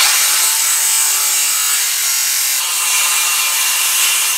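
Handheld circular saw cutting through a wooden board: a loud, steady rasp of the spinning blade in the wood, with a faint motor whine under it.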